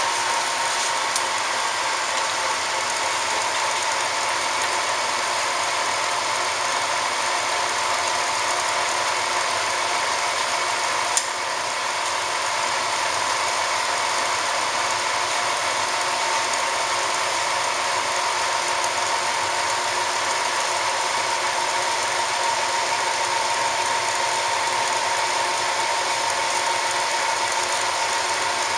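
1967 Tsugami T-SPL chucker lathe running, its spindle and three-jaw chuck turning at steady speed with an even mechanical whir and hum. One sharp click about eleven seconds in.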